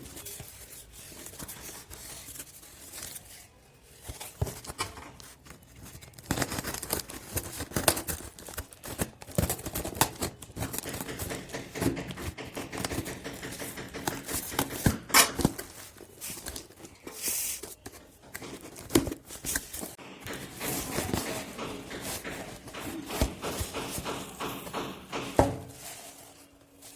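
A delivery parcel being unpacked by hand: a long run of irregular tearing, scraping and crinkling of packaging, with sharp snips and knocks scattered through it.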